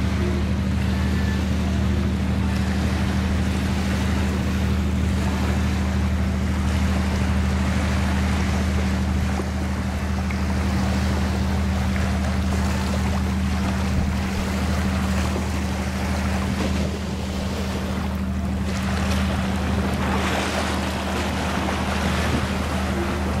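Fishing boat's diesel engine running with a steady low drone, over a wash of wind and water noise.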